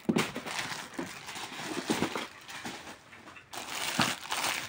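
Plastic wrapping crinkling and rustling as items are handled and shifted about in a box, with a brief lull about three seconds in.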